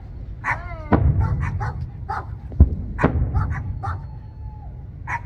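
Aerial firework shells bursting overhead: three sharp booms, about a second in and then twice close together between two and a half and three seconds in. Short high-pitched calls are heard between the booms.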